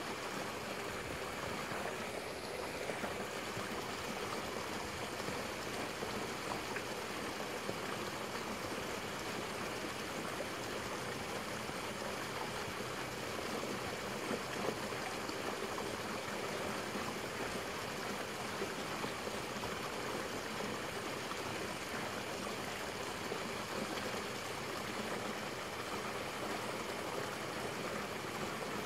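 Steady rush of flowing water, unchanging throughout, with a few faint ticks.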